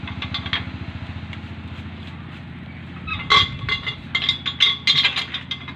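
Several sharp metallic clinks, a run of them from about three seconds in, as tools and metal parts are handled against a steel truck chassis, over an engine running steadily in the background.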